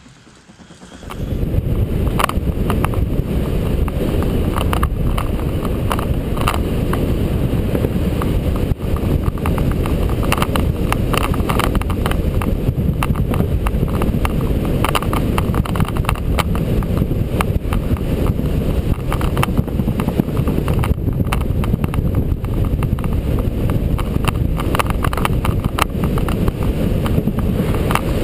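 Wind buffeting an onboard camera's microphone and a bicycle's tyres rumbling on a concrete velodrome track, starting suddenly about a second in, with frequent sharp clicks throughout.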